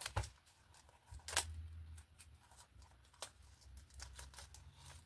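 Scissors snipping and picking at the plastic shrink-wrap on a boxed pencil set, with light crinkling of the film. A few scattered short snips and rustles, the clearest about a second and a half in.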